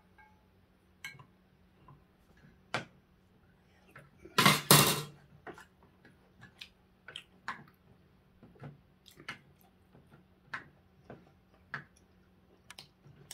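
Metal spoons clinking and scraping against ceramic bowls and dishes during a meal: many short, light taps scattered throughout. About four and a half seconds in comes one louder, noisy sound lasting under a second. A faint steady hum runs underneath.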